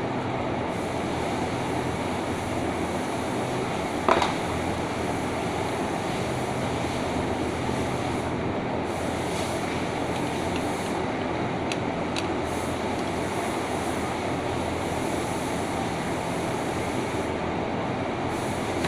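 Steady machine noise of a workshop, with one sharp metallic clink about four seconds in and a few faint ticks later, from the sharpener assembly of a straight-knife cloth cutting machine being taken apart.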